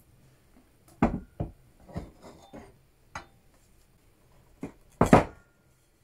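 Earthenware cooking pot and its clay lid being handled on a wooden table: a run of separate knocks and clinks, the loudest a short clatter about five seconds in as the lid comes off the pot.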